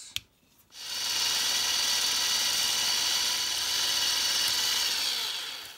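Electric drill running steadily as it drills out a rivet on a die-cast toy car. It starts about a second in and fades away just before the end.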